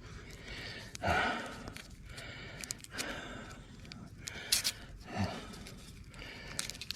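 A man breathing heavily close to the microphone: several sharp breaths and sighs, with a couple of clicks about four and a half seconds in.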